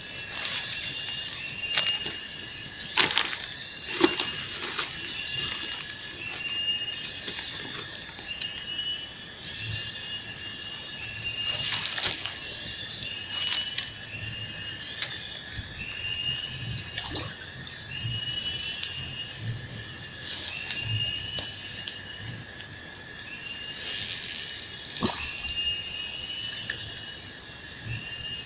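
Outdoor riverside wildlife: a steady high insect drone with a short chirping call repeating about once a second throughout. A few sharp knocks from handling stand out, the loudest about four seconds in.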